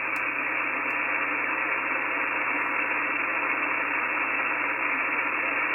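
Shortwave radio receiver on the 17 metre amateur band giving steady static hiss between transmissions, with no station coming through. The hiss is narrow and thin, cut off above a couple of kilohertz by the single-sideband receive filter.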